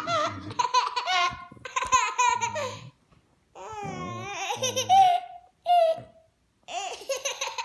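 A toddler laughing in repeated high-pitched bursts and squeals, with short pauses between the fits of laughter.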